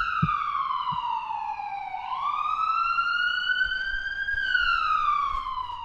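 Siren wailing slowly: the pitch falls for about two seconds, climbs back for about two, then falls again and fades near the end.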